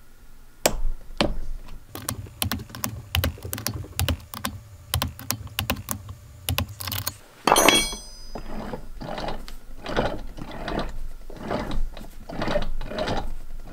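Torque wrench ratchet clicking in quick strokes as the cap bolts of a Ford 5000 tractor's Ross/Parker power steering valve get their final torque of 228 inch-pounds. About halfway through there is a louder clank with a brief ring, then slower ratcheting strokes about twice a second.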